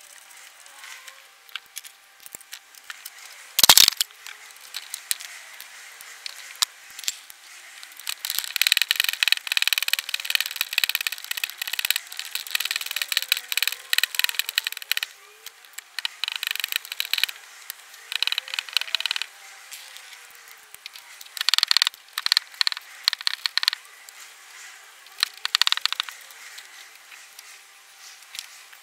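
Ratchet spanner clicking in bursts of rapid, even clicks while a nut is tightened. A single sharp clack comes about four seconds in.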